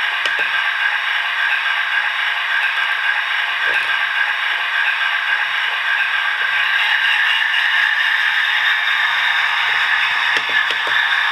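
Model railway locomotive running on the layout: a steady mechanical whir with light rattling and clattering from its motor and wheels on the rails. A low hum joins about six seconds in as the model Class 60 pulls forward.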